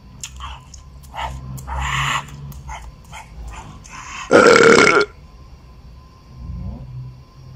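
Small wet smacking and clicking sounds of a man eating with his hands and chewing, then about four seconds in a loud, gruff throat noise from him, like a belch or a mock growl, lasting under a second.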